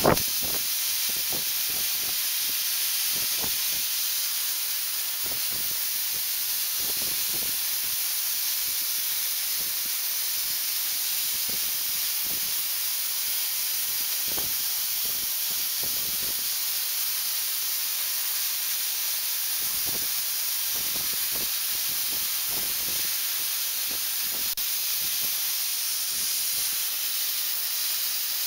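Welding arc from an ABB robot's arc-welding torch: a steady hiss with scattered faint pops.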